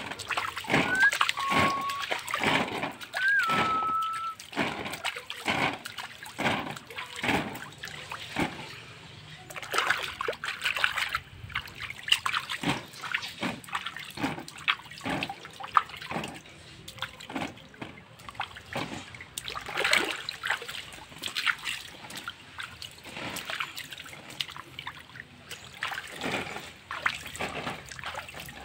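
Water splashed by hand onto a waterproof kite's sail and bamboo frame, in irregular splashes and patters. A few short whistled notes sound in the first few seconds.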